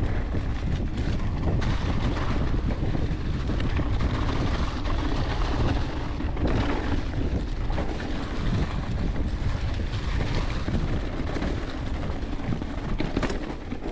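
Wind rushing over the helmet-camera microphone while a mountain bike rolls fast down a trail covered in fallen leaves, the tyres crunching through the leaf litter. There are a few brief knocks from the bike over bumps.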